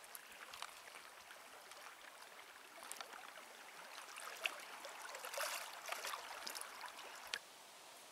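Faint, irregular trickling and lapping of water, with small crackles; it stops abruptly about seven seconds in, leaving only a steady faint hiss.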